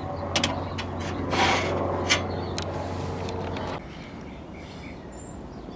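Hands handling the metal chassis and cabinet of a vintage tube television: rubbing and scraping with a few sharp clicks and light knocks, over a steady low hum. The sound drops away abruptly a little past halfway.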